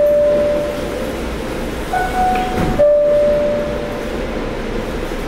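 PATH PA5 subway car's door-closing chime: a descending two-note tone, warning that the doors are closing. The low note of one chime fades about a second in, then the full chime sounds again about two seconds in, its low note held for about two seconds, over the steady hum of the standing train.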